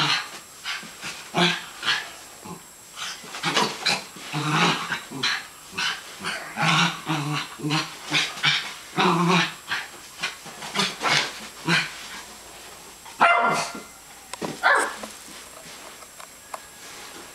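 A West Highland White Terrier play-growling and barking in a string of short bursts as it lunges at hands during rough play, with one louder bark about three-quarters of the way through.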